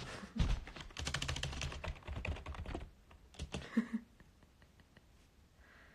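Typing on a separate computer keyboard: a quick, dense run of keystrokes for about three seconds, a few more keys a little later, then the typing stops.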